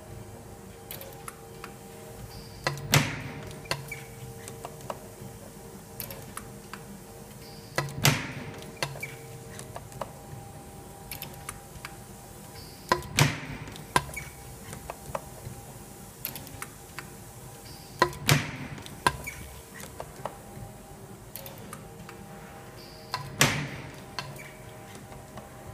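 Multi-slide spring-forming machine running through its cycle: a loud sharp metal clack about every five seconds, each with a short cluster of lighter clicks, over a steady machine hum and scattered small ticks between strokes.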